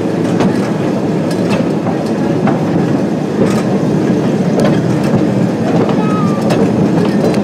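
Excursion train rolling slowly along the track, heard from aboard an open car: a steady rumble of steel wheels on rail with irregular clicks and clanks.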